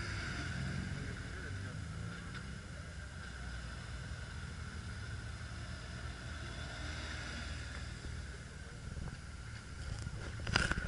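A car engine running at idle, a steady low rumble, with a short loud knock near the end.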